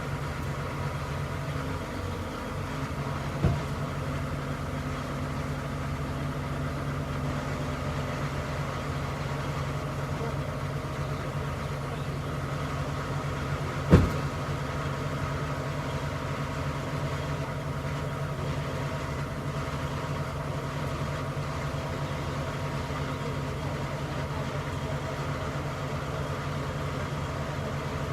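Diesel engine running steadily at an even speed. A small sharp knock comes about three and a half seconds in, and a louder one about fourteen seconds in.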